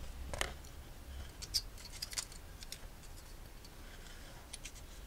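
A few faint, scattered metallic clicks and light scrapes from a thin 0.13 mm feeler gauge blade being handled and slipped into a valve clearance gap under the camshaft, where it fits.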